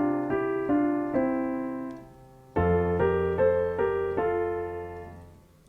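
Piano playing a blues double-note exercise: two-note right-hand chords in a swing rhythm over a held left-hand root note. There are two short phrases, each left to ring and fade. The second starts about two and a half seconds in over a new bass note, moving to the next key around the circle of fifths.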